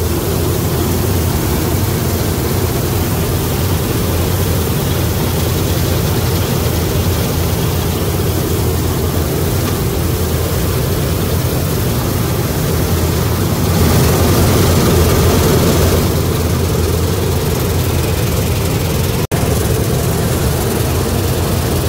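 Combine harvester running steadily while cutting wheat: a loud, even drone of engine and header machinery heard from the operator's seat. It swells a little for a couple of seconds past the middle and drops out for an instant near the end.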